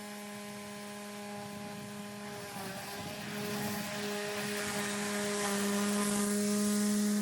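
EGO 56-volt electric lawnmower's blade motor running at a steady hum. A rushing hiss builds under it in the second half, getting louder toward the end.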